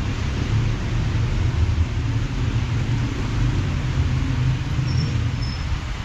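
Wind buffeting the microphone with an uneven low rumble, over a steady hiss of heavy rain.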